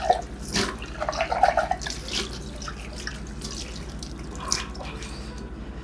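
Water running from a kitchen tap into a sink during washing-up, with a few sharp clinks of glass and dishes.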